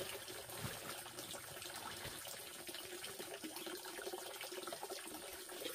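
Steady rushing noise like running water, with a few faint rustles and knocks as woven plastic feed sacks are handled and set down.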